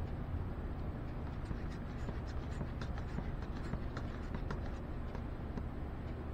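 Wooden stir stick scraping and ticking against the inside of a metal can while varnish is stirred, with a steady low hum underneath.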